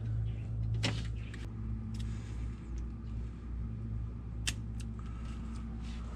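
A steady low hum with a few sharp clicks of hand crimpers being handled and snapped on a wire, the loudest a little past the middle.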